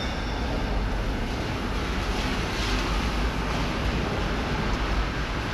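Steady rain falling on wet paving, an even hiss with a low rumble beneath it.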